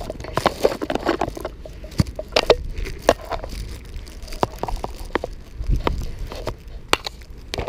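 A clear plastic bag of peanuts being handled right at the camera: irregular crinkling and sharp clicks.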